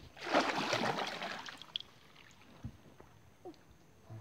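Kayak paddle stroke: a splashy swish of water in about the first second, then faint drips and a few light knocks.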